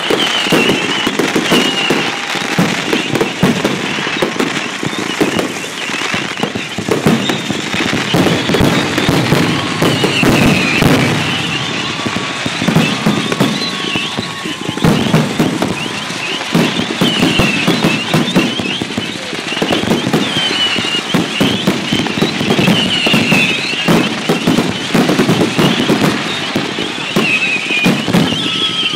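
Fireworks finale: a dense, continuous barrage of bangs and crackling shell bursts, with short high gliding squeals recurring every few seconds.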